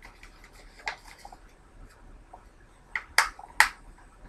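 Plastic Blu-ray case being handled and closed: a few sharp plastic clicks, the loudest two close together a little past three seconds in.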